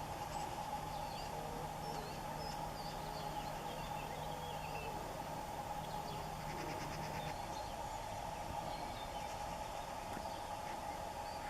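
Scattered faint bird chirps over a steady, even hum, with a low steady drone that stops about seven seconds in.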